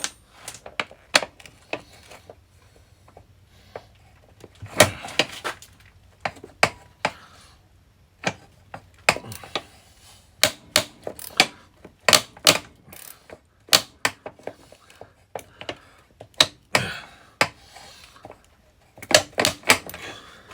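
Socket ratchet clicking in short, uneven runs, with metal knocks between, as it is worked back and forth on a seized bolt that barely moves.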